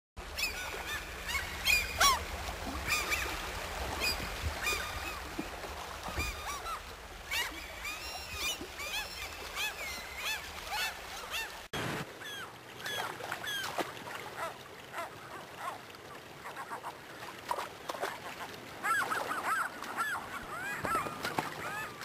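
A group of gulls calling: many short, overlapping cries that rise and fall in pitch, over the steady rush of a shallow, fast river.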